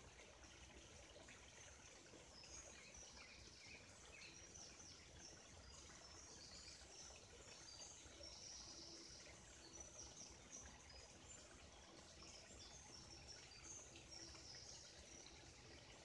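Faint birdsong, many short high chirps, over the steady rush of a stream.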